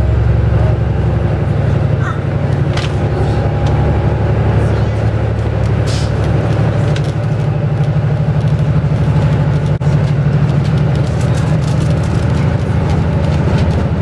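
Electric train running at speed, heard from inside the passenger car: a steady low rumble and hum from the wheels and running gear, with a few sharp clicks from the rails.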